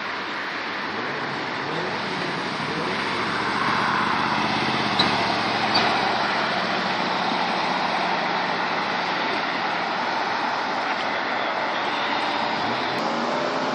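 A 1980s Ford F-series pickup's engine pulling away and driving past, louder as it passes about four seconds in, then settling into steady road and traffic noise. Two short clicks come about five and six seconds in.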